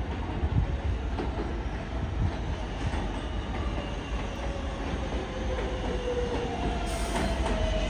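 NYC subway 7 train pulling into an elevated station: a steady low rumble of wheels on the track, with a whine that falls in pitch over the last few seconds as it slows. A brief high hiss comes near the end.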